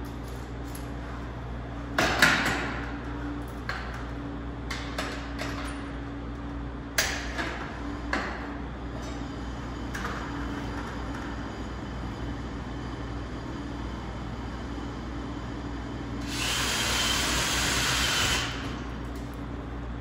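Sharp knocks and clanks from handling steel stud framing, the two loudest ringing briefly, then a drill-driver runs steadily for about two seconds near the end, driving a screw into the metal studs.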